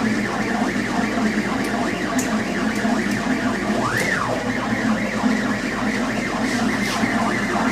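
Laser cutter's stepper motors whining as the head traces a jigsaw-puzzle outline at high speed with the beam off, the pitch rising and falling rapidly with each curve, over a steady low hum.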